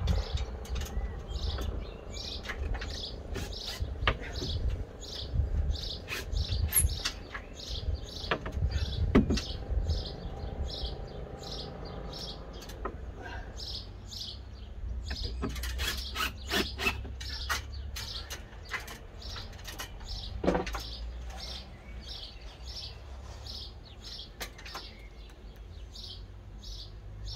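A small bird chirping over and over, short high notes about once or twice a second, over a steady low rumble, with a few scattered clicks and knocks.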